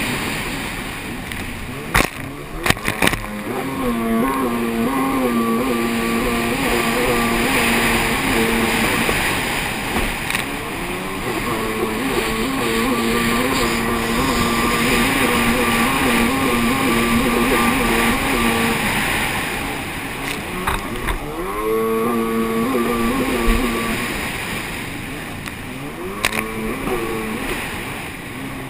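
Racing jet ski's engine running hard at high revs under the rush of spray and wind, its pitch stepping up and down with the throttle. Twice in the second half the engine note falls away and then sweeps back up. A few sharp knocks come about two to three seconds in.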